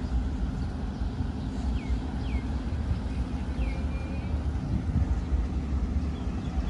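Steady low rumble with an engine-like drone running under it. A small bird gives a few short falling chirps, three or four times.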